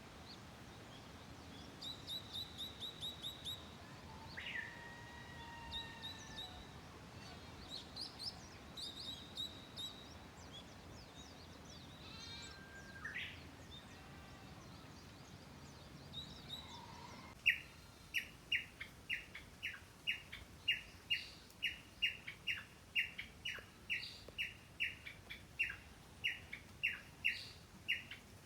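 Wild birds calling: quick high trills and gliding whistles in the first half, then one bird repeating a short, sharp note about twice a second for the last ten seconds.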